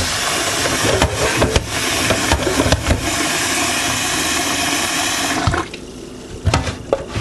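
Kitchen tap running hard into a pot of rice being washed, with a few knocks of the pot, cutting off sharply about five and a half seconds in; a couple of pot knocks follow.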